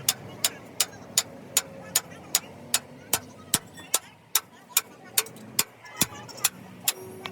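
Steady, evenly spaced hammer blows on metal, about two and a half sharp strikes a second.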